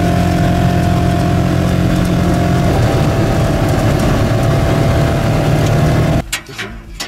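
Hunting buggy's engine running steadily while driving a dirt track, heard from the driver's seat; its note shifts slightly a little under three seconds in. Near the end the engine sound cuts off abruptly, leaving a few sharp clicks.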